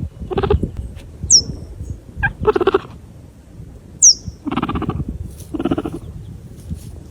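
An animal calling: four short pitched calls of about half a second each, spaced unevenly, with two brief high chirps that fall in pitch between them.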